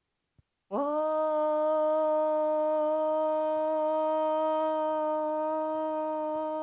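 A woman chanting one long "Om" on a single steady pitch, starting just under a second in with a brief slide up into the note after a silent in-breath.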